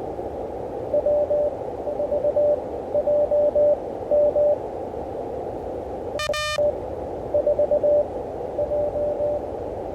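Morse code (CW) from an Elecraft KH1 handheld transceiver on the 20 m band: groups of short and long beeps at one steady pitch over constant receiver hiss. About six seconds in, a brief, harsher beep cuts in.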